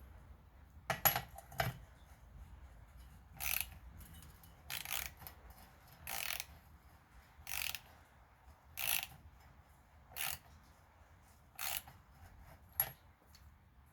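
Wrench working a spark plug in a Husqvarna 460 chainsaw's cylinder: a couple of clicks, then about seven short rasping strokes at an even pace, with a sharp metal click near the end. The plug is not biting; the cylinder's spark plug threads are stripped.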